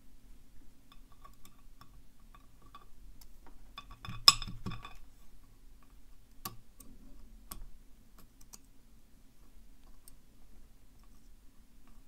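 Small metallic clicks and taps as tweezers work the sliders out of a disassembled padlock core, the sharpest click about four seconds in.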